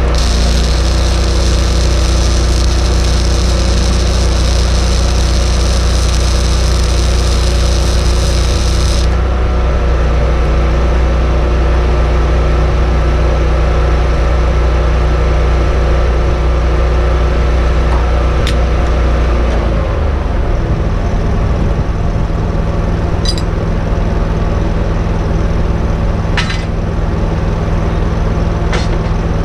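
Electric arc welding on an excavator's boom: the arc crackles and hisses for the first third, then stops. Under it an engine-driven welder on a service truck runs steadily. Its note changes about two-thirds of the way in, and a few sharp clicks come near the end.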